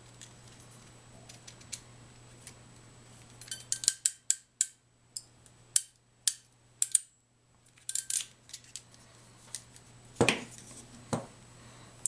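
Hand crimp tool for HDMI field-termination connectors clicking sharply and irregularly, a dozen or so times, as its handles are squeezed to crimp the connector's metal shield down onto the cable. Near the end come two duller knocks.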